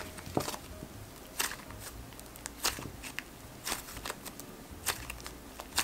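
Slime being squished and stretched by hand, giving sharp little pops and crackles about once a second, with softer clicks between.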